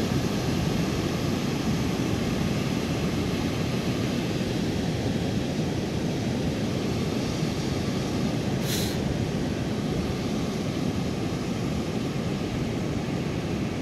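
Wind blowing across the phone's microphone on an open beach: a steady, dense rumble with a short hiss about nine seconds in.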